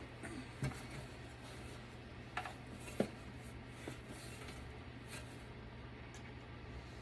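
Scattered clicks and knocks of an HP Pavilion desktop's parts being handled during teardown, the sharpest about three seconds in, over a steady low hum.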